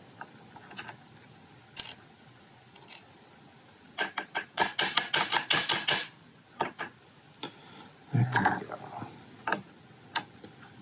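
Small metal clicks and rattles from a lock and tools being handled during disassembly: scattered single clicks, a quick run of clicks about four seconds in, and a cluster of heavier knocks near eight seconds.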